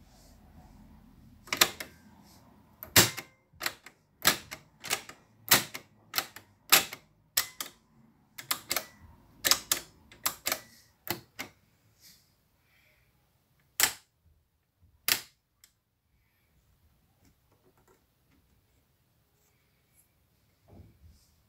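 Piano-key transport buttons of a Philips reel-to-reel tape recorder being pressed and released, giving a run of about twenty sharp mechanical clacks. The last two clacks come further apart.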